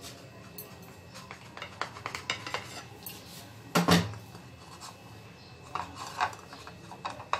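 Kitchen knife cutting through sliced white bread on a plate: light scraping and small clicks of the blade and bread against the plate, with one louder knock about four seconds in.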